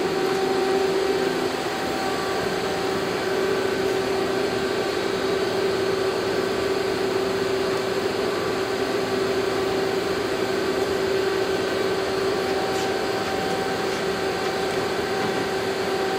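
Steady machine hum with a constant mid-pitched tone from a Yama Seiki SW32 CNC Swiss lathe and its VITO magazine bar loader running, heard at close range.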